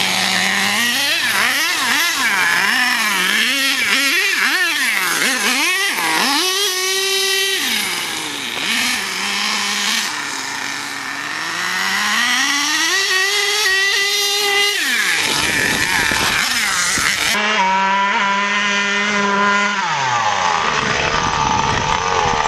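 Nitro engine of a Savage X RC monster truck fitted with a K5.9 engine, running hard. Its high, buzzy engine note rises and falls over and over as the throttle is worked, with two long climbs to a high whine.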